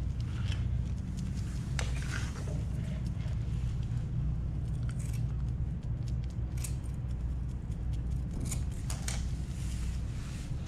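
Wooden stick scraping and clicking against a plastic cup of resin putty and spreading it along a fibreglass deck joint: scattered light scrapes and clicks over a steady low hum.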